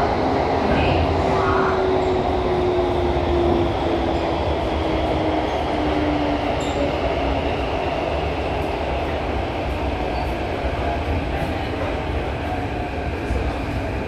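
CT251 metro train running, heard from inside the car: a steady rumble of wheels and rail, with a motor whine that falls slowly in pitch over the first several seconds.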